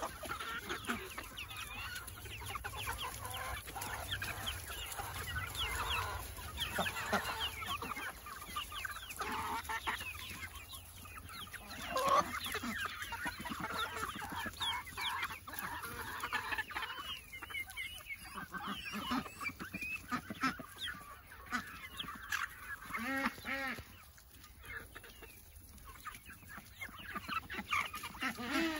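A flock of feeding hens clucking and chirping, a dense chatter of short calls that thins out after the middle, with a short run of repeated calls near the end.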